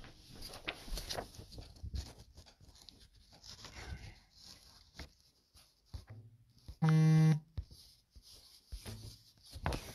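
Soft footsteps and handling knocks, then, about seven seconds in, a mobile phone buzzes once for about half a second: a loud, steady vibration buzz from an incoming text on a phone just switched to silent.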